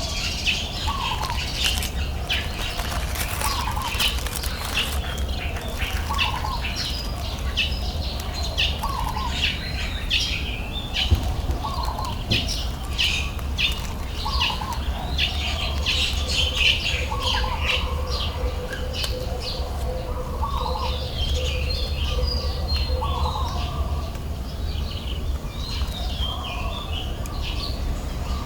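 Several birds chirping and calling, with one bird repeating a short hooked call about every two seconds, over a steady low rumble.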